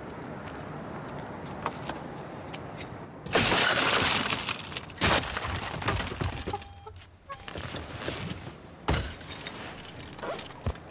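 Glass smashing and shattering about three seconds in, typical of a car window being broken. It is followed by a sharp knock, a brief high beeping and another knock.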